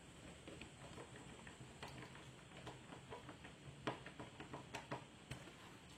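Faint, irregular small clicks of a screwdriver turning a screw into a laptop's bottom cover, with a few sharper ticks about four and five seconds in.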